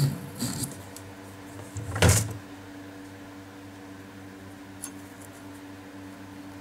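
Small drill bit scratching briefly through thin copper sheet at the start, then a single loud knock about two seconds in. After that, only a steady low hum with a small click near the end.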